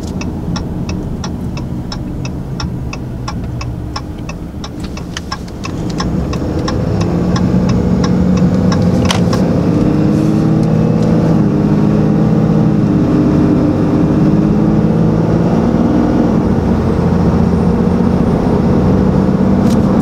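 Cab interior of a 6.7L Cummins inline-six turbo diesel pickup. For the first few seconds the turn signal ticks about three times a second; then, about six seconds in, the engine pulls away under load and grows louder, running steadily under turbo boost through the stock intake.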